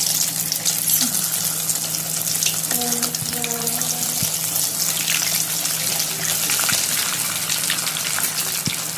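Bread-crumbed chicken cheese rolls deep-frying in hot oil, a steady dense sizzle with fine crackling as the oil bubbles around the freshly added rolls.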